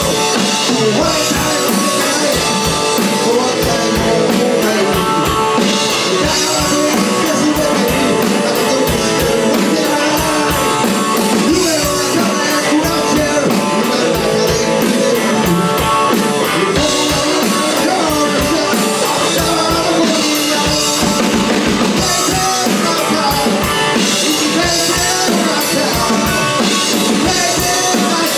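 Live rock band: electric guitar played through a 1967 Supro Thunderbolt amplifier, with a drum kit and a man singing over it.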